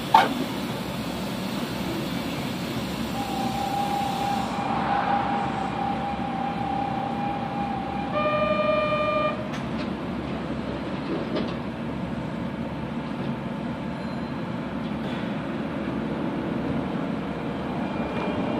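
Inside a Kobe Municipal Subway 3000 series train: steady rumble of the running gear, with a sharp click right at the start. A steady whine from the Hitachi GTO-VVVF inverter shifts to a lower, louder tone about eight seconds in and stops about a second later.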